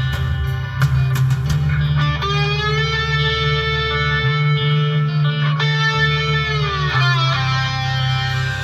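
Background instrumental music led by electric guitar, with sustained, bending notes over a steady low bass.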